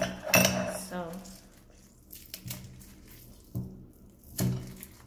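Metal garlic press squeezing garlic cloves, with soft squishing and crunching, and a few spoken sounds in between.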